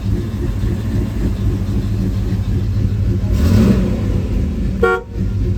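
Old car-pickup's engine running at idle, revving up briefly about three and a half seconds in, then a short beep of the car horn near the end.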